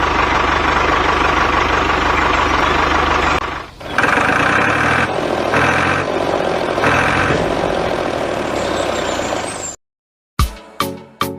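A small engine or motor running steadily. It dips briefly a few seconds in, then runs again with a higher whine coming and going about every second and a half, and cuts off suddenly near the end, where a few sharp musical hits begin.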